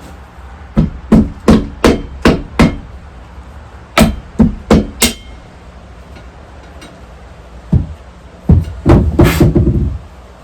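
Hammer blows on metal parts during ATV swing arm reassembly: a run of about six steady strikes, then four more, then a single blow and a quick flurry of rapid blows near the end.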